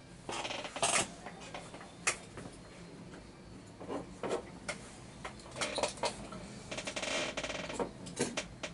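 Small clicks and clatters of diecast toy cars and plastic parts being handled and set down on a table, with a couple of short stretches of rustling near the start and near the end.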